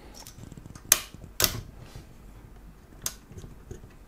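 A CPU cooler fan and its wire spring clip being fitted to the heatsink, giving sharp clicks: two loud ones about half a second apart a second in, and a lighter one about three seconds in.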